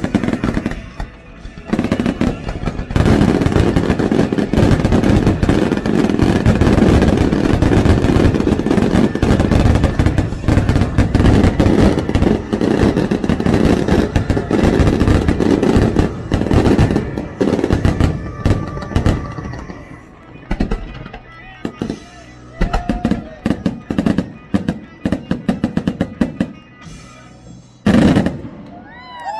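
Fireworks finale: a dense barrage of aerial shells and ground comets firing so fast that the bangs run together, thinning out after about twenty seconds to separate booms, then one last big burst near the end. Music plays underneath.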